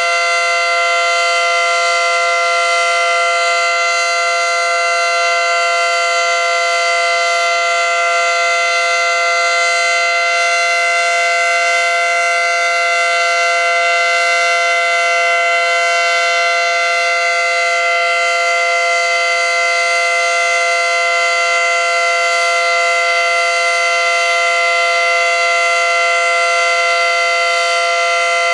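ACA Screamer dual-tone, 9/12-port outdoor warning siren sounding its steady Alert signal: a loud, held two-note chord at full pitch.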